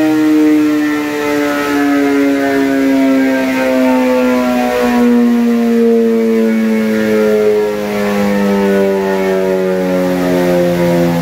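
Chassis dyno roller and motorcycle rear wheel coasting down after a pull, a steady whine that falls slowly and evenly in pitch.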